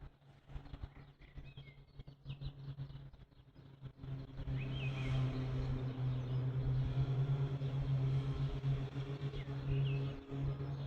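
A steady low hum sets in about four seconds in and stays level, with a few short bird chirps over it.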